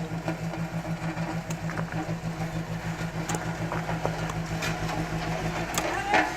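An engine running steadily with an even pulsing hum, with scattered knocks and clicks over it. A louder clatter comes near the end, and the engine hum cuts off just after it.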